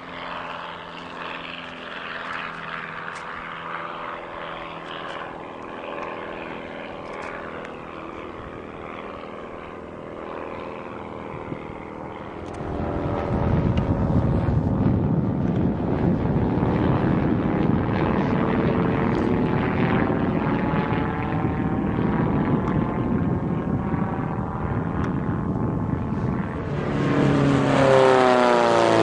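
Single-seat propeller plane's AeroVee engine running at full power through the takeoff run and climb. It is distant at first, grows much louder about twelve seconds in as the plane comes overhead with a sweeping, wavering tone, and swells again near the end as it passes close by.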